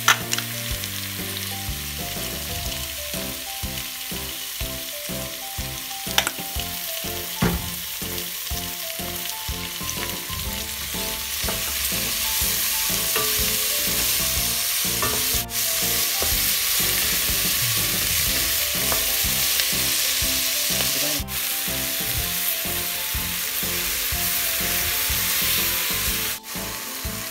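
Vegetables sizzling as they stir-fry in a stainless steel pot, turned over with a wooden spoon, with a steady hiss and a few sharp knocks of the spoon against the pot in the first several seconds.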